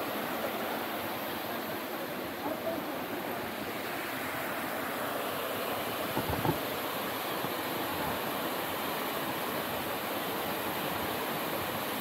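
Steady rushing roar of the Abbey Falls waterfall. A brief thump about six seconds in.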